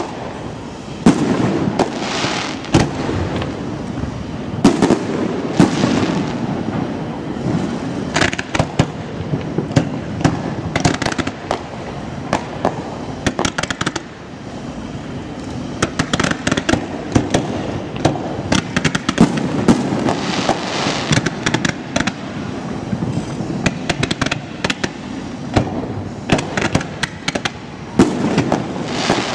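Aerial fireworks bursting in a rapid, irregular series of sharp bangs and crackles, over a continuous low rumble.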